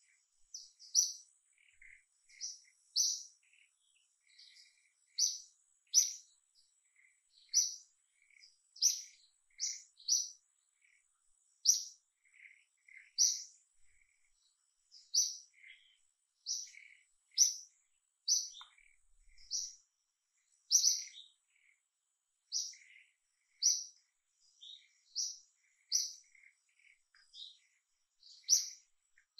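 Small birds chirping: short, high chirps repeated about once a second, over a faint steady high-pitched tone.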